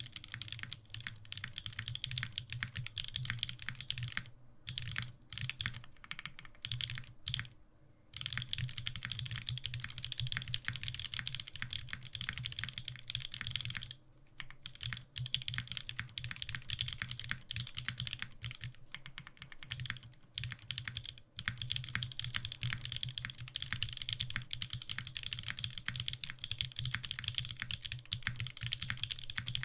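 Steady, fast typing on a WilbaTech Salvation leaf-spring-mounted 60% custom mechanical keyboard with lubed and filmed BCP linear switches and GMK keycaps, its keys clacking in quick runs. A few short pauses break up the runs in the first part.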